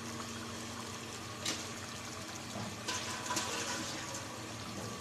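Fish curry gravy bubbling at a boil in a pot: a steady low hiss with a few soft pops.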